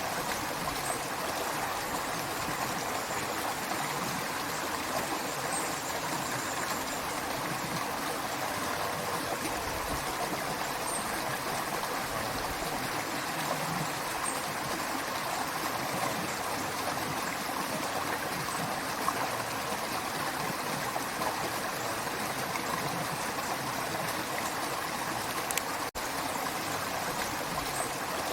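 A running creek, its water flowing and trickling steadily. The sound cuts out for an instant near the end.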